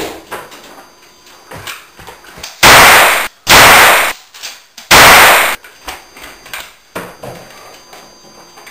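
Three loud rifle gunshots, the last about a second after the first two, each a sharp crack that dies away over half a second.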